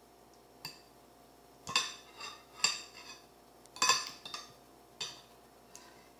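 Metal fork and spoon clinking and scraping against a plate during a meal: a series of about eight irregular, ringing clinks, the sharpest about two, two and a half and four seconds in.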